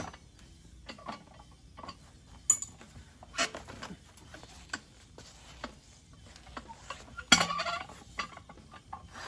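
Homemade steel lever-type bead breaker being worked down against a tire's sidewall to push the bead off the rim: a series of metal clanks and knocks, loudest about two and a half seconds in and again near the end.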